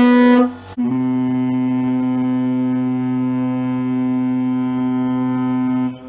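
Deep air horn blasts: the end of a short blast, then after a brief gap one long steady blast of about five seconds, which dips briefly near the end and carries on more quietly.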